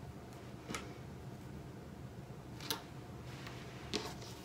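Sewing clips snapping onto layers of fabric and zipper to hold them together for stitching: three sharp clicks a second or two apart, over a faint steady hum.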